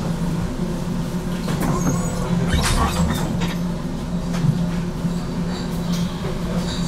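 Inside a GTL8 articulated tram: a steady electrical hum with background rumble, broken by a few short knocks and clatters, the loudest a little over halfway through.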